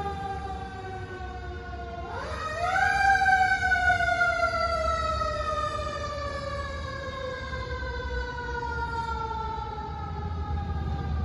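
Fire engine's mechanical siren in a long falling wail. It winds back up quickly about two seconds in, then coasts slowly down again as the truck moves away, over a low engine rumble.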